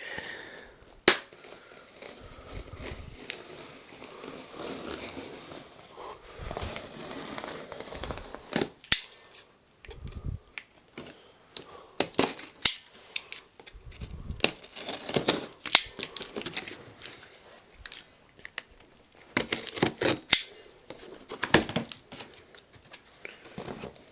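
Cardboard TV box being opened and its packaging handled: an irregular run of sharp clicks, scrapes and rustles.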